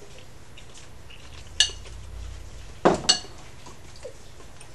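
Kitchen utensil clinking against cookware: a sharp ringing clink, then about a second later a heavier knock followed at once by another ringing clink.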